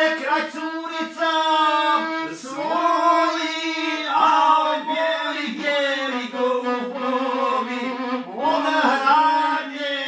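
A man singing a slow folk song in an ornamented, wavering melody, accompanied by a violin holding steady sustained notes beneath the voice.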